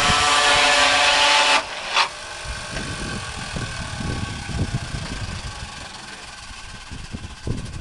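Chain sawmill cutting through a log under load; the cutting noise stops abruptly about a second and a half in, followed by a sharp clack. After that the machine runs much quieter, with irregular low knocks.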